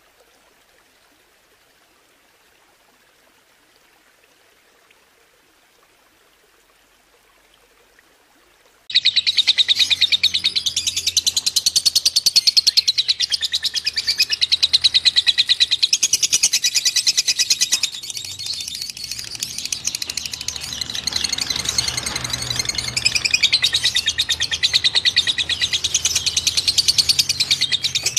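Faint flowing water, then about nine seconds in a small songbird breaks into a loud, fast, dense high-pitched trill (a 'tembakan'), running on with small shifts in pitch.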